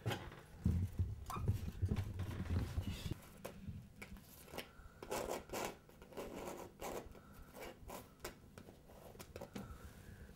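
Scratching and rubbing with many small clicks and taps scattered throughout, and low thuds in the first few seconds.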